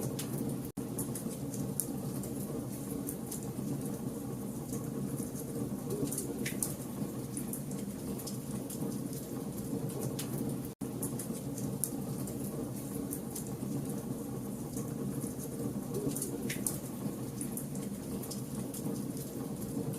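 Campfire burning with frequent crackles, snaps and pops over a steady low rush of flame. The sound cuts out for an instant twice, about a second in and about halfway through.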